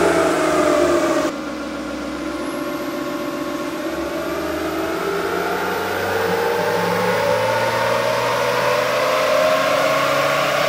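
Next-gen Ford Ranger's twin-turbo diesel engine under load on a chassis dyno, with a short cut about a second in, then pulling up through the revs in one long, steadily rising run. A faint high whine climbs along with it.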